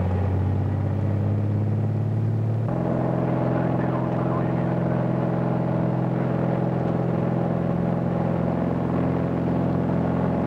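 Light single-engine airplane's piston engine and propeller running at takeoff power during the takeoff roll, a steady drone. The engine tone changes abruptly about two and a half seconds in, then holds steady.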